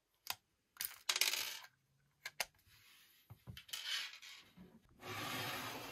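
Hasbro Fire Spirit's Snowy Snack Salamander toy being pressed and handled: several sharp clicks, then short crackly, jingly bursts of sound, with a longer burst about five seconds in.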